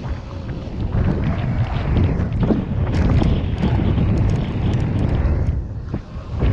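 Wind buffeting the microphone during a mountain bike ride, a loud, steady rumble with scattered clicks and rattles over it. It dips briefly near the end, then comes back.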